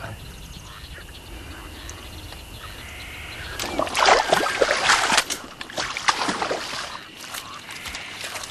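Boots wading and splashing through shallow marsh water. Irregular sloshing steps start a few seconds in.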